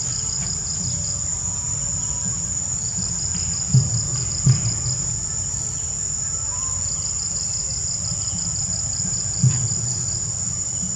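Insect chorus: a steady high buzz with trains of rapid pulsed chirping that come and go. Underneath, a low rumble with a few dull thumps, two about four seconds in and one near the end.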